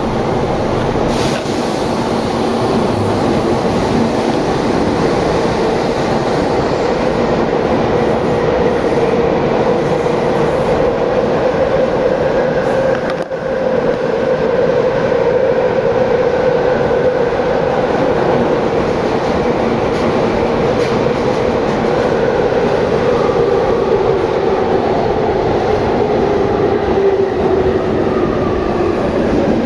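Tobu 9050 series electric train running underground: a steady rumble of wheels on rail with a whine from the motors and gears. The whine drops slightly in pitch near the end.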